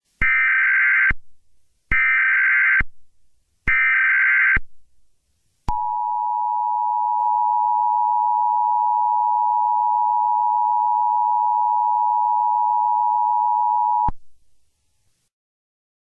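Emergency Alert System SAME header: three bursts of shrill digital data tones, each just under a second long and evenly spaced. They are followed by the EAS two-tone attention signal, a steady dual tone held for about eight seconds that cuts off sharply.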